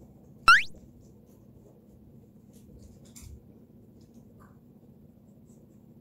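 A short, loud rising whistle, an added comic sound effect, about half a second in, over a low steady room hum. A faint scratchy rustle about three seconds in.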